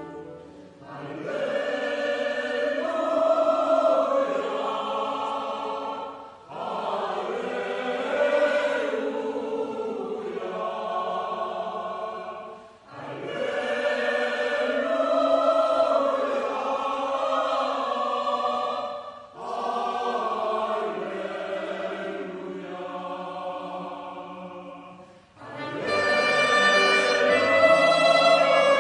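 Mixed choir of men's and women's voices singing a hymn in phrases of about six seconds, each followed by a brief break for breath. The sound is fuller and louder near the end.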